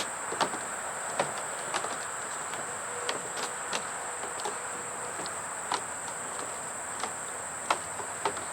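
Steady, high-pitched chorus of insects such as crickets, with scattered short clicks and taps throughout.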